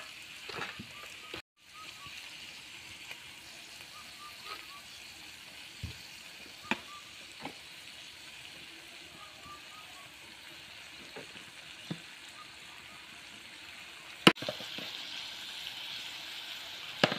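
Pigeon meat and pumpkin pieces sizzling in oil and spice paste in a kadai, a steady hiss with a few light ticks. A sharp knock comes about 14 seconds in, after which the sizzle is louder.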